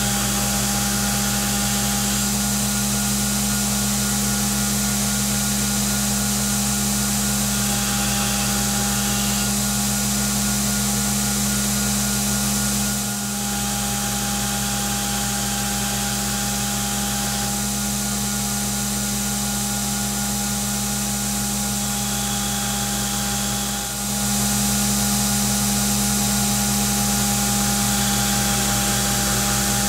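Belt grinder running steadily with its motor humming under the hiss of a 1095 high-carbon steel blade being ground on the abrasive belt. The sound dips briefly twice.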